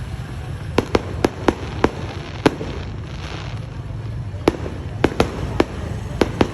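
Fireworks going off as a run of sharp cracks, about a dozen in two clusters with a lull between them, over a steady low background rumble.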